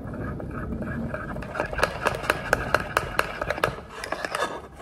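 A spoon stirring thick yogurt and protein powder in a ceramic bowl, scraping and then clicking quickly against the bowl, about five clicks a second from about one and a half seconds in.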